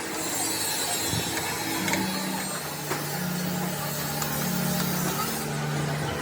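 Workshop machinery running: a steady mechanical hum with a hiss and a few light clicks.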